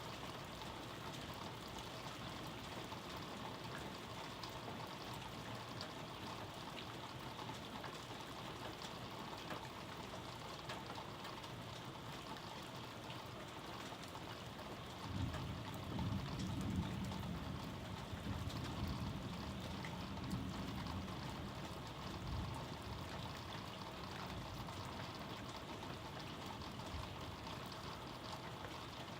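Steady rain falling. About halfway through, a low rumble of thunder swells for several seconds, then fades back under the rain.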